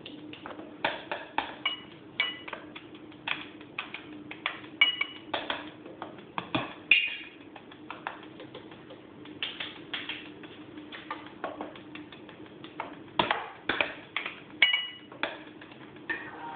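Improvised percussion on kitchen utensils: a knife and spoon clinking and tapping on metal and kitchen objects in quick, uneven bursts, some strikes ringing briefly, with a short pause about halfway through. A steady low hum runs underneath.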